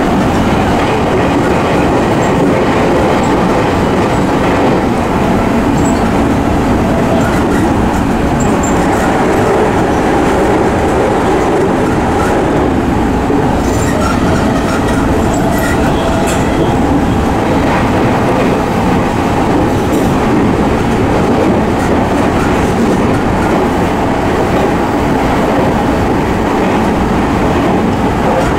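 Interior running sound of a JR East E217-series electric train car fitted with MT73 traction motors, travelling at speed: a steady rumble of wheels on rail and motor noise.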